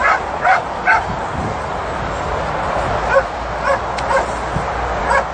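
Dog giving short, high-pitched yelping barks: three quick ones in the first second, then a few more spaced about half a second apart later on, over a steady hiss.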